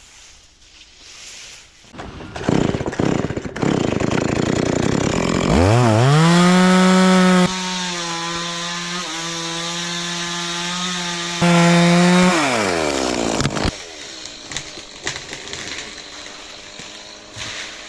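Stihl chainsaw revved up sharply about five seconds in and held near full throttle. Its pitch sags and the sound gets quieter for about four seconds while it bites into wood, then it rises again briefly before dropping back to idle. Scrappy scraping and rustling noise comes before it.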